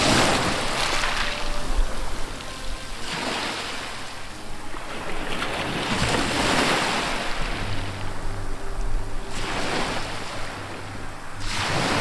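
Sea water rushing and splashing along a sport-fishing boat's side in repeated surges about every three seconds, with wind on the microphone. A low steady hum comes in about two-thirds of the way through.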